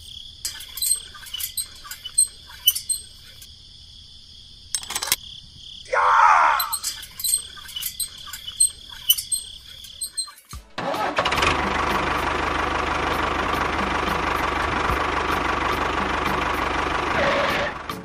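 A thin steady whine with scattered clicks and a short falling squeal, then about eleven seconds in a loud, steady tractor-engine running sound starts and holds for about six seconds before stopping.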